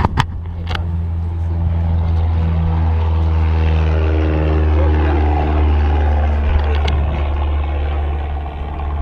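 Aircraft engine noise on an airfield ramp: a steady low drone, with a second engine swelling to its loudest about halfway through and then easing off, as if an aircraft were passing. A couple of sharp clicks near the start.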